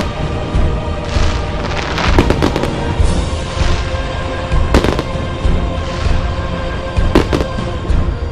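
Fireworks going off: a quick cluster of sharp bangs about two seconds in, single bangs about two and a half and five seconds later, and softer crackling bursts between them, all over steady music.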